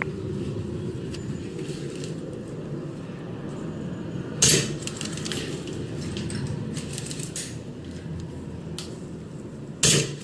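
Steady shuffling and rustling of a player moving with gear, broken by two loud sharp cracks, one about four and a half seconds in and one near the end, each followed by a few faint clicks.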